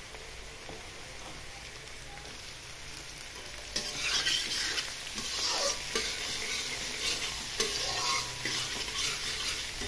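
Diced potato, carrot and capsicum sizzling in hot oil in a steel wok. About four seconds in, a metal spatula starts stirring them, scraping against the pan at irregular strokes, and the sizzle gets louder.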